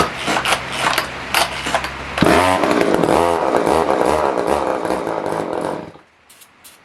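About two seconds of clicking and rattling, then a Poulan Wood Shark two-stroke chainsaw engine fires on starting spray. It runs for about four seconds with its pitch rising and falling, then dies. It is not spinning the chain, a sign the carburetor isn't drawing enough fuel to run on its own.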